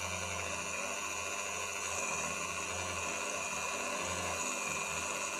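Dremel rotary tool in a drill-press stand running steadily at just over 3000 RPM with a 2 mm bit, drilling slowly into a metal clutch part under a gentle feed: a steady motor whine over a low hum.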